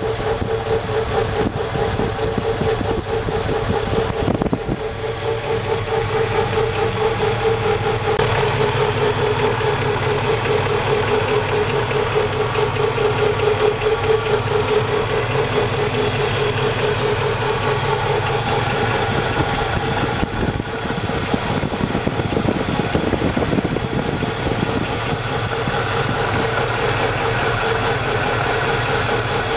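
Car engine idling, heard up close in the engine bay beside the drive belts and alternator, with a steady mid-pitched hum over the engine noise.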